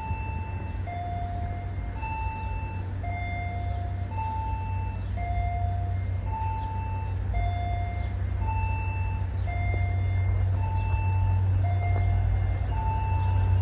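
Two-note electronic warning signal, a high note then a lower note about a second later, repeating about every two seconds, over the low drone of an approaching commuter train's diesel locomotive, which grows louder as it nears.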